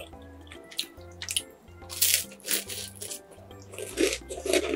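Crunchy bite into a garlic baguette slice about two seconds in, then close-miked chewing near the end, over background music.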